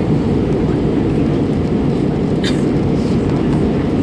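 Steady low rumble of an airliner cabin in flight: jet engine and airflow noise, unchanging in level, with one brief click about two and a half seconds in.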